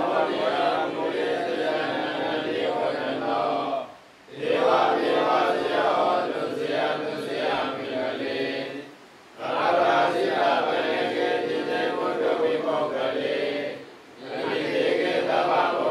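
A group of Buddhist monks chanting Pali verses together in unison, in long phrases of about five seconds, each followed by a brief pause for breath.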